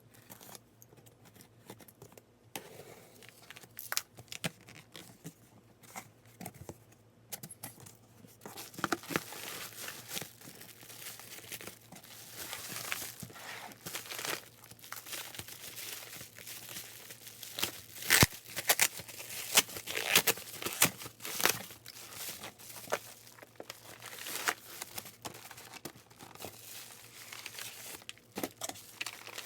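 Parcel packaging being torn open and plastic wrapping crinkled by hand: an irregular run of rustles, rips and sharp crackles that grows busier and louder partway through.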